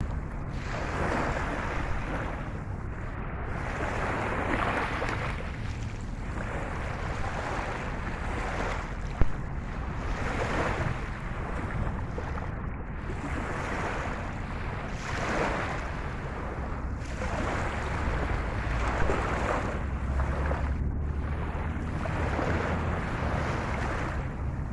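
Rushing water with wind noise on the microphone, swelling and fading every second or two over a steady low rumble. A brief sharp knock about nine seconds in.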